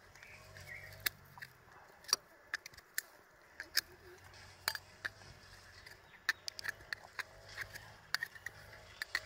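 Irregular sharp clicks and scrapes of a ribbed steel rod (rebar) prying at an oyster's shell to open it.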